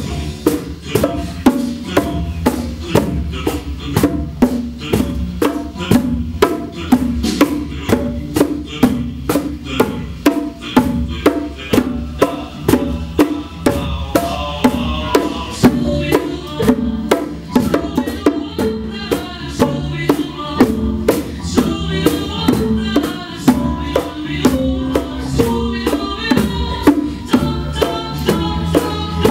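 Music with a steady drum beat over bass and other instruments.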